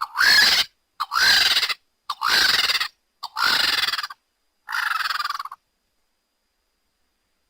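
Vulture giving five harsh, raspy hissing calls, each under a second long and about a second apart.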